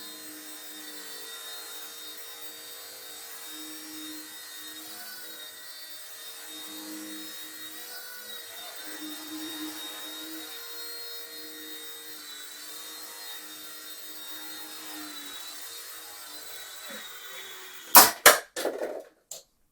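Firefox C129 micro RC helicopter hovering, its motor and rotor giving a steady whine that wavers slightly in pitch. About 18 s in, the helicopter hits the table in a rough landing with a few sharp clattering knocks, and the whine stops.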